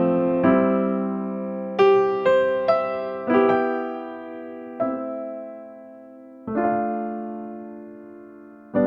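Background music: slow, gentle electric piano playing single notes and chords that ring out and fade, a few seconds apart.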